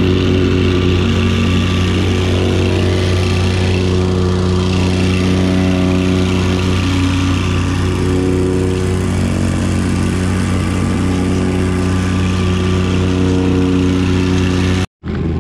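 Gas-engine plate compactor running steadily, tamping a bed of crushed stone, heard close up from the machine.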